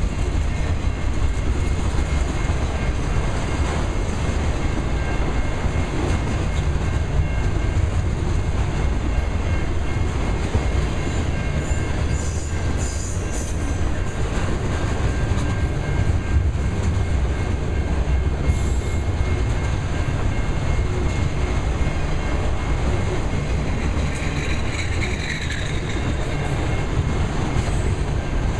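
Autorack freight cars rolling past close by: a steady heavy rumble and clatter of steel wheels on rail.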